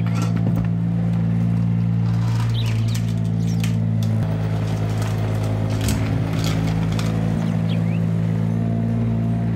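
Steady tractor engine sound at a constant idle, laid over toy play, with bird chirps in the background and a few light clicks from the plastic toy being handled.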